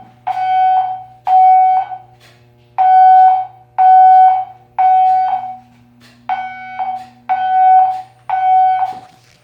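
Fire alarm system sounding its evacuation tone: loud, steady-pitched beeps about half a second long, repeating in groups of three with a longer pause between groups, the temporal-three evacuation pattern. A faint low hum runs underneath.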